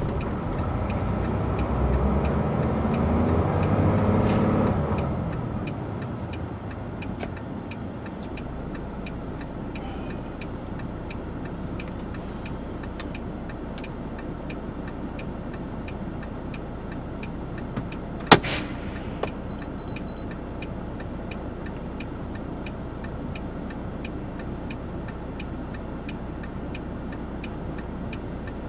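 Steady low truck engine hum with a fast, regular ticking like a turn-signal or hazard-flasher relay. In the first five seconds a passing vehicle's engine swells and fades, and about eighteen seconds in there is a single sharp click.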